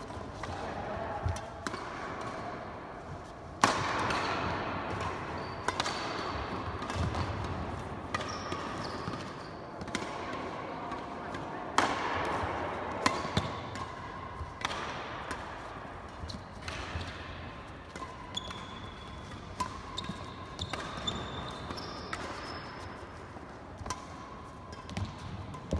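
Badminton rally: sharp cracks of rackets striking the shuttlecock, about one every one to two seconds, echoing in a large hall, with short squeaks of shoes on the court floor between shots.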